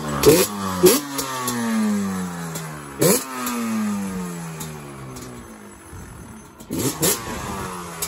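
Yamaha Banshee's twin-cylinder two-stroke engine running, blipped four times: each rev climbs sharply, then falls slowly back toward idle.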